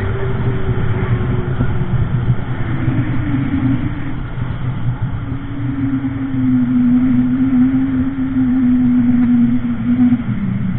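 Jet ski engine running at speed under a rush of wind and spray. Its pitch drops a few seconds in and then holds steady, dipping again near the end.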